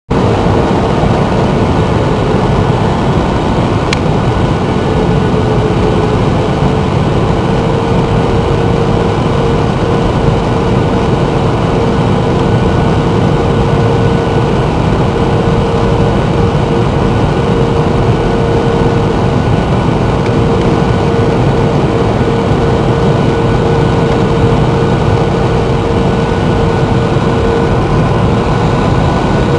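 Steady loud cabin noise of an airliner in flight on approach: jet engines and rushing airflow heard from inside the passenger cabin, with a steady droning hum.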